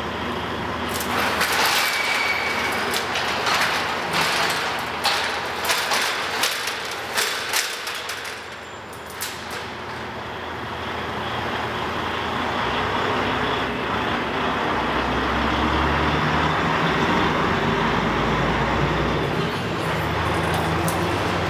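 A Mortec high-speed sectional door opening, with a run of sharp clicks and rattles from its panels and track. About halfway through a steady low engine hum builds and holds, from a car idling inside the garage.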